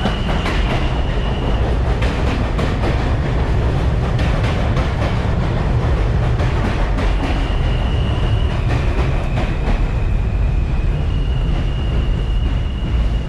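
New York City subway train on an elevated line running alongside the platform: a loud, steady rumble and clatter of wheels on rail, with a high whine that comes in about seven seconds in and again near the end.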